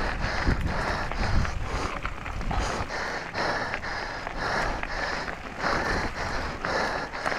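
Mountain bike tyres rolling over loose gravel, with wind buffeting a helmet-mounted microphone and the rider breathing hard, about one breath a second.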